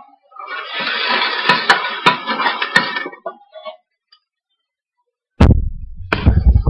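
Diced onions sizzling in hot oil in a stainless steel pot as a metal spoon stirs them, with several sharp clinks of the spoon against the pot. After a short gap, a few heavy low thumps come near the end.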